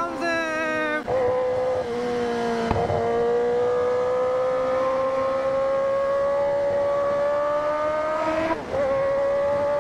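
Kawasaki Ninja ZX-10R inline-four engine heard from the rider's seat under steady acceleration, its pitch rising for several seconds. Near the end there is a brief dip as it shifts up a gear, and then it climbs again. A single knock is heard a little under three seconds in.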